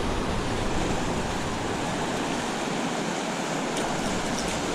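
Steady rushing noise of river water flowing over shallows, with a few faint ticks near the end.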